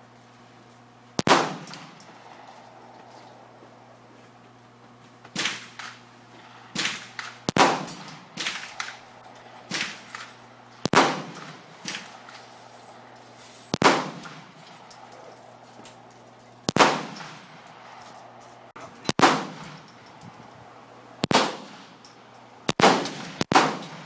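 A string of single 9mm handgun shots fired one at a time. They come irregularly, a second to three seconds apart, with two in quick succession near the end. Each crack rings out briefly after it.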